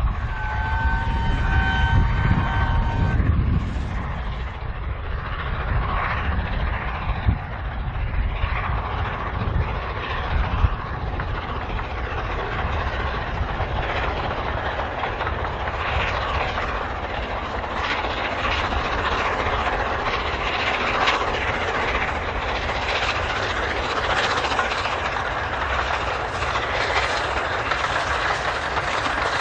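Peppercorn A1 three-cylinder steam locomotive 60163 Tornado whistles for about three seconds at the start, then works past at the head of a train of coaches. Its exhaust beats and the running of wheels on rail carry on to the end.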